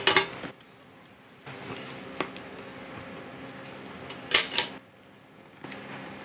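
Clattering of hard plastic on a glass tabletop: a short rattle at the start, a single click about two seconds in, and, loudest, a clatter as a plastic hot glue gun is picked up off the glass about four seconds in. A low steady hum runs underneath.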